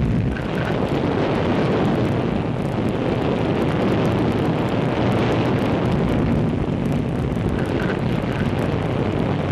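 Jupiter-C rocket engine at liftoff: a loud, steady rushing noise, heaviest in the low end, on an old newsreel soundtrack.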